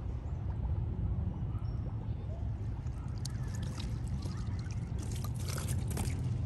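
Water splashing and trickling against a kayak, busiest from about three to six seconds in, over a steady low rumble.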